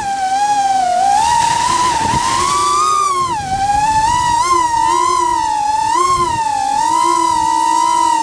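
Whine of a small 3-inch FPV quadcopter's brushless motors and propellers in flight, its pitch wavering up and down as the throttle changes, with a rise and then a sharp dip about three seconds in before it settles into a steadier tone.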